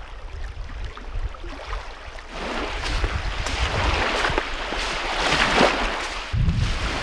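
Wind rumbling on the microphone beside lake waves. About two seconds in, a much louder hiss of water washing up the sandy beach begins, mixed with hiking boots crunching on the wet sand; it is loudest shortly before the end, then drops back to the wind rumble.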